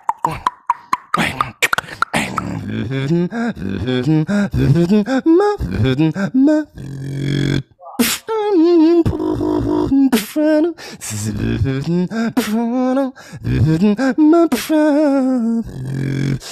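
Live beatboxing into a microphone: rapid snare- and hi-hat-like mouth clicks over a hummed melody with wavering pitch and a sliding bass line, with one brief break about halfway through.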